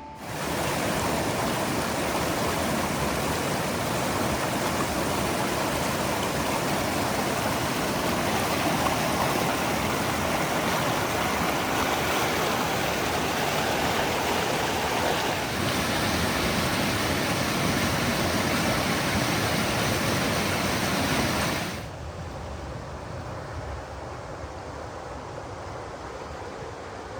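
Rushing whitewater of a river chute, a steady loud rush that drops to a softer rush about 22 seconds in.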